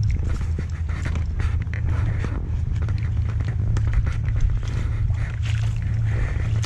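Low, steady wind rumble on the microphone of a camera worn while walking, with irregular crunching footsteps in mud and on rubble.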